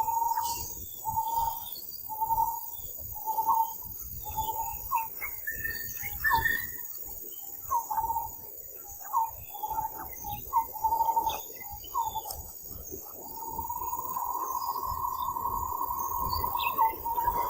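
A run of short, repeated animal calls, then one long steady call about three-quarters of the way in, over a steady chorus of insects.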